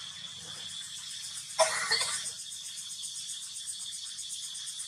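Steady, high-pitched chirring of insects. About a second and a half in, a sharp click and a brief burst of noise cut across it.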